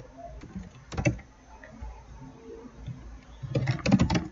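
Computer keyboard and mouse clicks: a single click about a second in, then a quick run of key clicks near the end.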